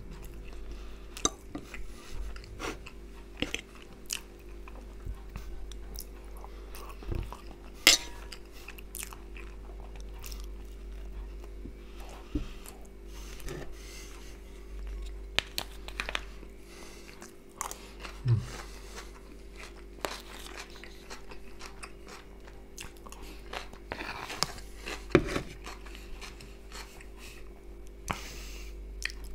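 Close-miked chewing and crunching of fried potatoes and fresh tomato-cucumber salad, with scattered clicks of a metal fork against the plate and bowl. A steady low hum runs underneath.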